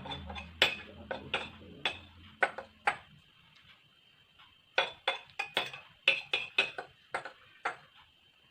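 Eating utensils clinking and scraping against a dish while noodles are eaten: a string of short sharp clicks, a pause, then a quicker run of clicks.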